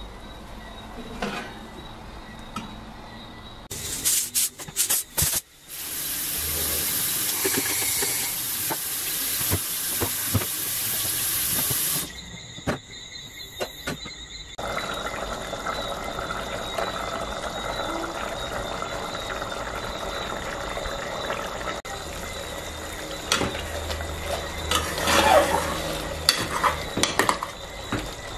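Water running into a steel sink over an aluminium pressure cooker, a steady rushing hiss, with clicks and clattering of metal as the cooker is handled, mostly near the end.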